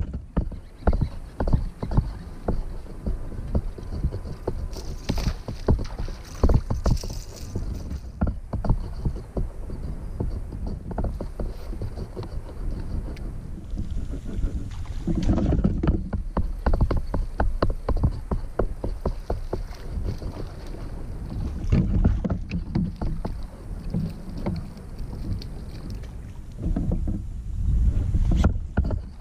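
Sounds aboard a fishing kayak: wind rumbling on the microphone, with many small clicks and knocks from the angler's tackle and movements on the hull.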